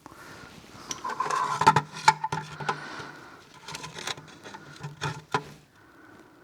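Hand tools clinking and tapping around a car's oil drain plug, a 17mm socket being worked on it: irregular metallic clicks, a few louder taps about a second and a half to two seconds in and again around five seconds in.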